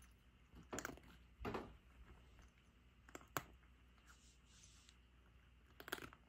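A cat chewing dry kibble, with a few short quiet crunches spaced a second or more apart.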